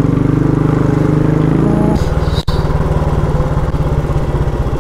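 Royal Enfield Bullet's single-cylinder engine running while riding on the road. Its note shifts about two seconds in.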